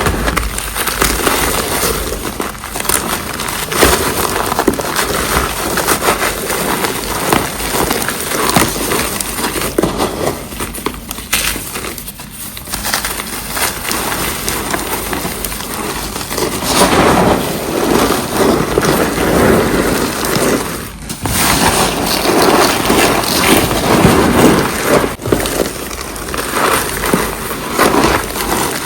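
Reformed cornstarch blocks being crushed, a dense continuous crunching and crumbling made of many fine crackles. It eases off briefly about twelve seconds in and drops out for a moment about twenty-one seconds in.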